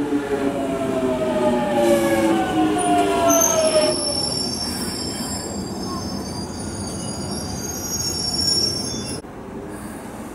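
Jubilee line 1996 Stock Underground train slowing along the platform: its traction motor whine falls in pitch over the first few seconds. A high-pitched squeal then takes over from about three seconds in and cuts off suddenly about nine seconds in.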